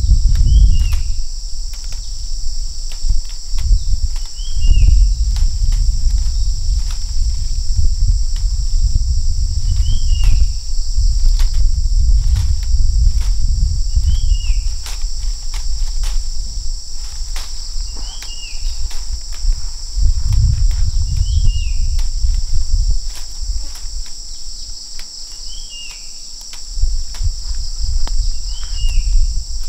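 Steady high-pitched insect chorus, with a short chirp repeating every few seconds. Underneath are an uneven low rumble and scattered clicks.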